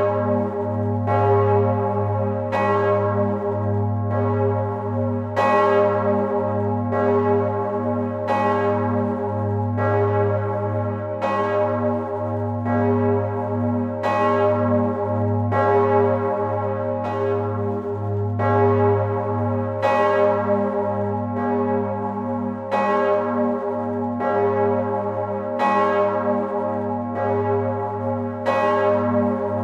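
Large bronze church bells of St. Stephen's Cathedral's south tower swinging in full peal, heard from inside the bell chamber. The loudest bell strikes about every three seconds, other bells strike in between, and a deep hum rings on between the strokes.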